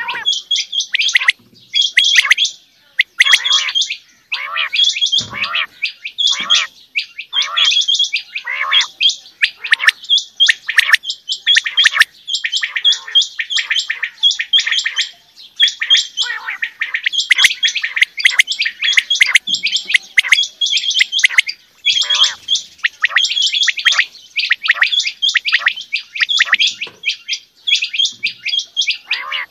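Several caged Coturnix quails calling over one another, short sharp calls repeated in quick succession without a pause.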